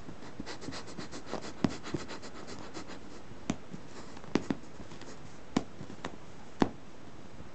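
A cat's claws scratching at a fabric sofa cover, a quick run of scratchy strokes for the first few seconds. After that come a handful of sharp clicks as the claws catch the cloth and a ribbon.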